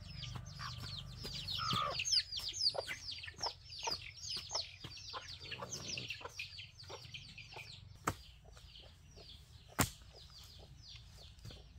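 A batch of young chicks peeping continuously: many short, high, falling peeps several times a second, overlapping one another. Two sharp knocks sound near the end.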